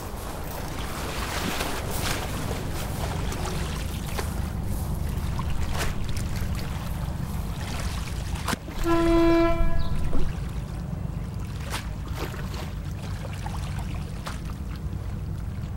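A horn sounds once about nine seconds in, a single steady note held for about a second, over a steady low rumble with a few scattered clicks.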